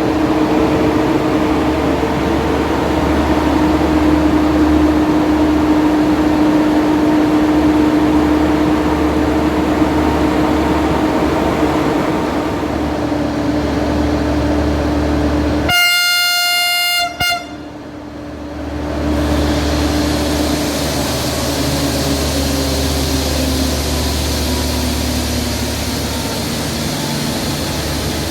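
Diesel locomotive, an Alsthom, running with a steady low engine hum. Its horn sounds once for about a second and a half just past the middle, then the engine note falls gradually.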